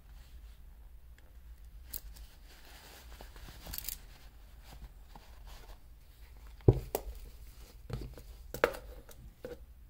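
Handling noises of a wristwatch presentation box being unpacked: a soft rustle of the packaging about 3–4 s in, then a few sharp knocks of the box as it is closed, the loudest about two-thirds of the way through.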